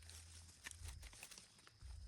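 Near silence, with a low hum and a few faint scattered ticks.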